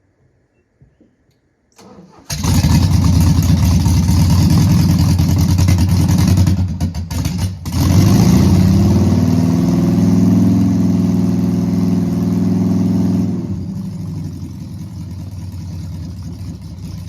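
VW Beetle's air-cooled flat-four engine running loud from about two seconds in. It drops off briefly around seven seconds, comes back rising in pitch as it revs up, and runs quieter for the last few seconds.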